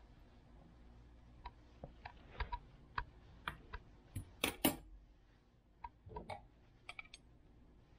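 Metal fork and knife clicking and tapping on a bamboo cutting board while wet pickled mustard greens are pulled apart: scattered light clicks, with two louder knocks about four and a half seconds in.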